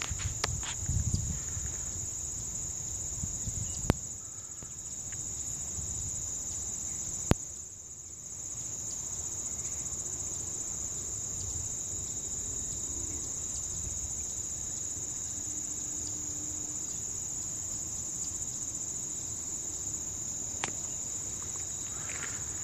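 Steady, high-pitched chorus of late-summer insects. Two sharp clicks, one about 4 seconds in and one about 7 seconds in.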